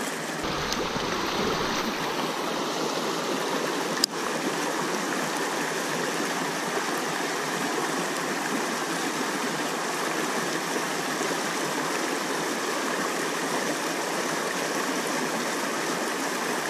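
Shallow river rapids rushing steadily over rocks. One sharp click about four seconds in.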